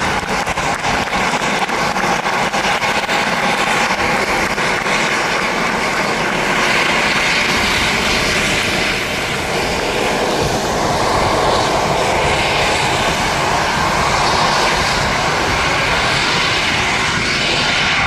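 Jet aircraft engine running: a loud, steady rushing noise that swells slightly around the middle.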